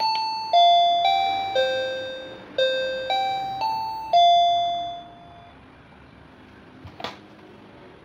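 Sanking BE-053A wireless doorbell chime playing an electronic melody of about eight bell-like notes, one every half second, with the last note fading out about five seconds in. A single sharp click comes near the end.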